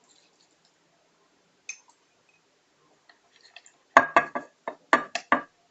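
Hard containers clinking and knocking together, about six sharp clinks with a short ring, starting about four seconds in after a near-quiet stretch.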